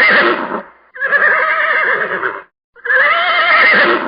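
Horse whinnying over and over: a neigh ending just after the start, another about a second in and a third near three seconds in, each with a quavering, warbling pitch. The same neigh recording is repeated.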